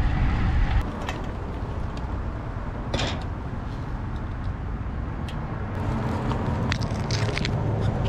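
Steady low outdoor rumble of wind and road traffic, with a sharp click about three seconds in and a cluster of small metallic clicks near the end as a bike lock is fastened to a rack.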